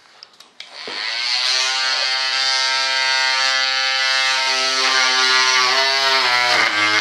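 Handheld rotary tool switched on about a second in, spinning up to a steady high-speed whine. Its pitch dips briefly near the end as the bit loads up cutting a slot in the model wing's control surface.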